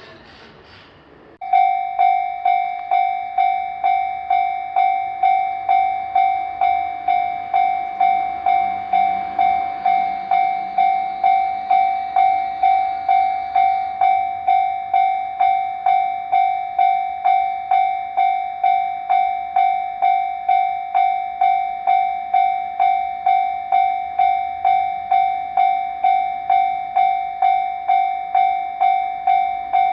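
Japanese railway level-crossing warning bell starting suddenly about a second and a half in, then ringing steadily at a little under two strikes a second, each strike a clear ringing tone that dies away before the next. It signals that a train is approaching and the crossing is closing.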